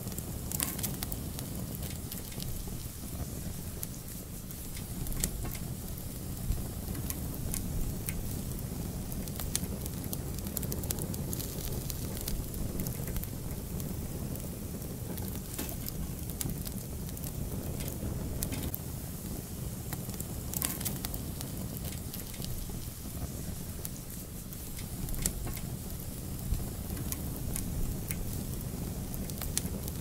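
Fire burning in a fireplace: frequent crackles and sharp pops over a steady low rumble of the flames.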